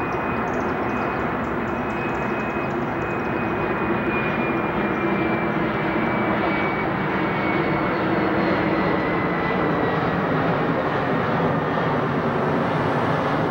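Airbus A320 jet airliner flying low overhead on approach with its landing gear down: a steady jet roar with a thin whine that slides slowly down in pitch, growing a little louder about four seconds in.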